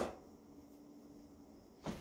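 Two sharp clicks about two seconds apart, a hand screwdriver working on a sheet-metal breaker panel cover, over a faint steady low hum.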